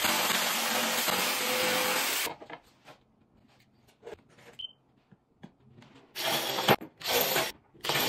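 Handheld power tool with its dust-extractor hose attached, cutting along a wooden filler strip, running steadily and stopping suddenly about two seconds in. After a few faint knocks, a cordless drill drives screws into the board in three short bursts near the end.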